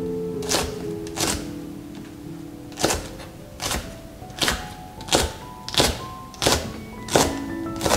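Kitchen knife slicing a Korean green onion (daepa) stalk on a cutting board: about ten sharp chops, settling into a steady pace of roughly one every 0.7 seconds, over light background music.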